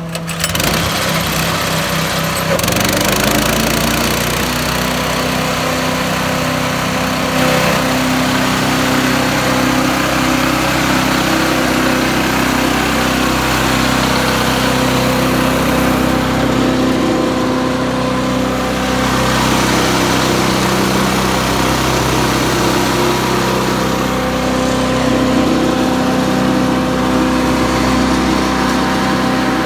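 Predator 212cc single-cylinder engine on a chipper shredder revving up over the first couple of seconds, then running steadily at speed, with a loud, steady rushing noise from the spinning chipper.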